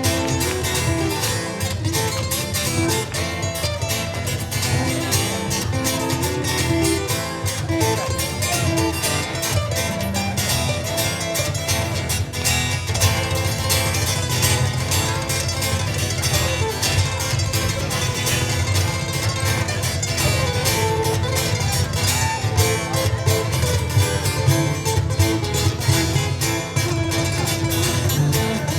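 Ukuleles playing a lively instrumental, a plucked melody over fast, steady strumming.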